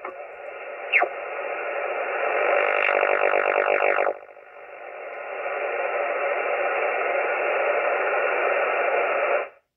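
Receiver hiss and static from a mobile HF ham transceiver as its tuning knob is turned across an amateur band, with a falling whistle about a second in as a signal is tuned past. The hiss dips about four seconds in, builds back up, then cuts off suddenly near the end.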